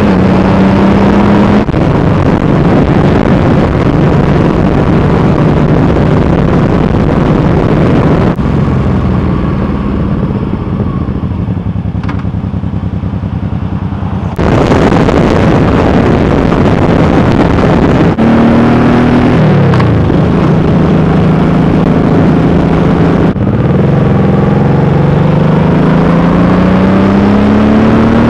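1996 Honda Shadow 1100 V-twin engine heard from the rider's seat, with wind rushing over the microphone. It runs under way and drops to a quieter, lower-revving stretch in the middle, then pulls away with its pitch rising through the gears several times, with abrupt jumps in the sound where the footage is cut.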